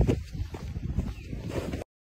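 Footsteps on packed snow, a run of soft irregular steps that cuts off suddenly near the end.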